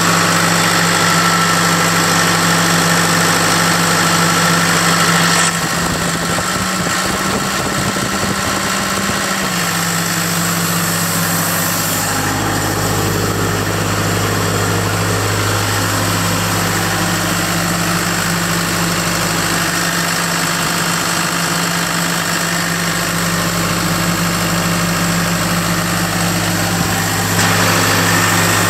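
John Deere 4239 four-cylinder diesel engine running steadily.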